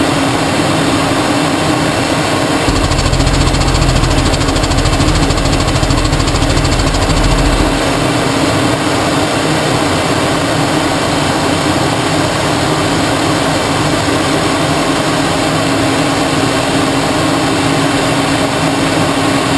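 Steady cockpit noise of a jet aircraft in flight: engine and air rush with a constant hum. A deeper low rumble joins in from about three to eight seconds in.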